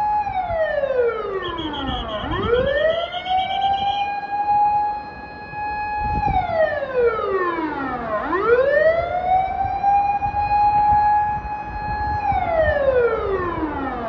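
Vehicle siren wailing loudly: a long steady high tone that slides down in pitch and swoops back up, about every six seconds, dropping three times.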